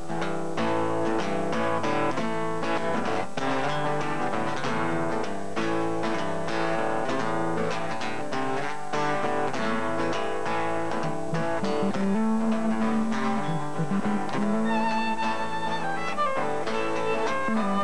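Instrumental intro of a slow, slightly meditative song played live by a small band: steadily picked acoustic guitar over electric bass. A bowed violin line comes in over the last few seconds.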